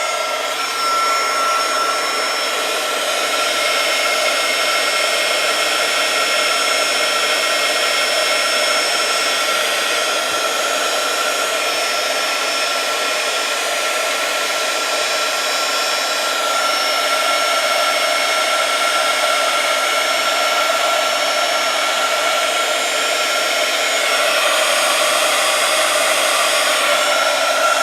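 Full-size electric heat gun blowing steadily, shrinking heat-shrink tubing over a crimped connector: an even rush of air with a thin, steady whine.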